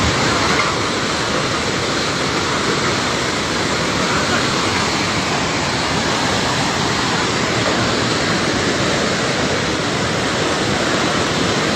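Floodwater rushing in a swollen river, a loud, steady roar of water with no break.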